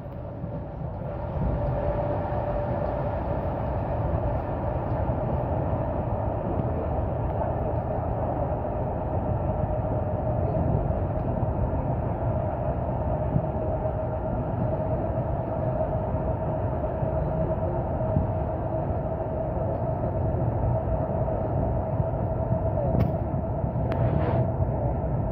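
Passenger train running, heard from inside the carriage: a steady rumble of the running gear with a steady whine above it.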